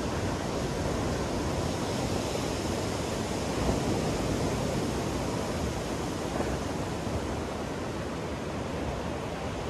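Ocean surf breaking and washing up a sandy beach: a steady wash of wave noise, swelling slightly about four seconds in.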